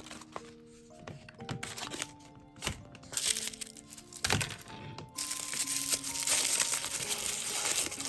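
Thin plastic packaging being handled and unwrapped: scattered sharp clicks and crackles, then a sustained stretch of crinkling from about five seconds in. Light background music with held notes plays underneath.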